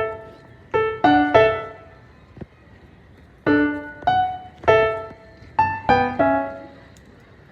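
Background piano music: a light melody of single struck notes that ring and fade, in two short phrases with a pause of about a second and a half between them.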